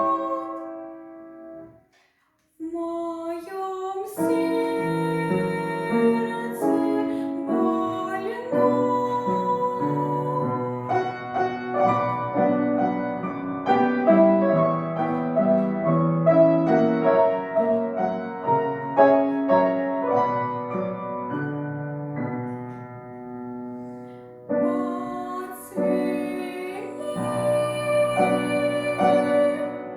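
A piano accompanies a woman singing a slow Russian romance. The music breaks off briefly about two seconds in, then resumes.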